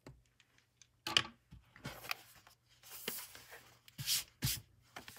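Handling sounds from a laptop and a screwdriver on a plastic cutting mat: a few clicks and a sharp tap, then short scrapes and rubs, with two louder scrapes about four seconds in.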